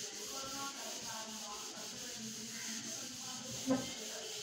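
A duster wiping a whiteboard: a steady rubbing swish in repeated back-and-forth strokes, with one brief louder sound near the end.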